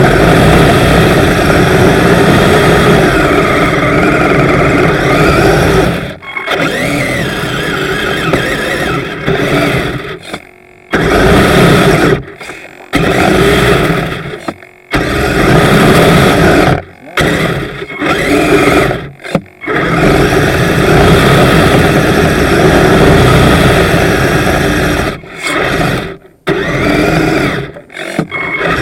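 Radio-controlled Kyosho Blizzard snowcat running on metal tracks: upgraded electric drive motors whining under the clatter and squeal of the metal tracks, with several brief abrupt pauses where the drive stops and restarts.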